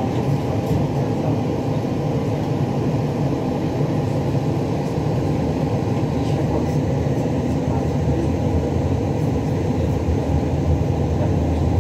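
Škoda 15T tram running along the tracks, heard from inside the car: a steady low rumble of wheels and running gear, growing a little louder near the end.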